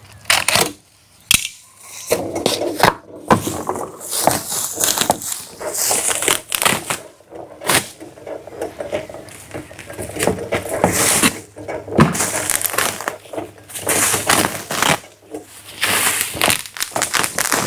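Bubble wrap crinkling and crackling on the handle of a hydraulic scissor lift table cart, with several sharp knocks and clanks from the cart as its foot pump is worked to raise the table.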